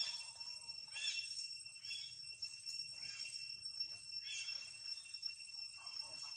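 Outdoor tree-canopy ambience: a steady high-pitched insect drone, with short chirping calls about once a second.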